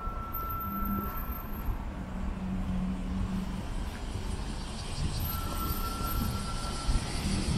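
Nishitetsu electric train running, a steady low rumble with a thin high whine that sounds at the start and again about five seconds in; the rumble grows louder near the end.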